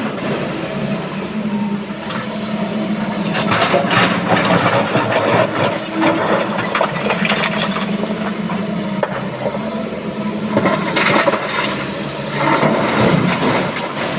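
Excavator's diesel engine running steadily under irregular rattling and knocking of stone being loaded into a dump truck. The clatter is heaviest a few seconds in and again near the end.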